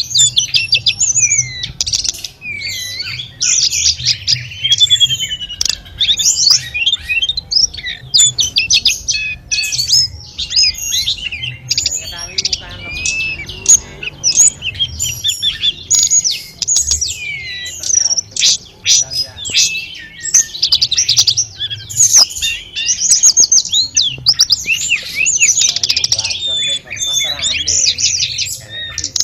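A tledekan gunung singing a continuous, rapid, varied song of quick chattering and whistled phrases with barely a pause, over a low murmur of running water.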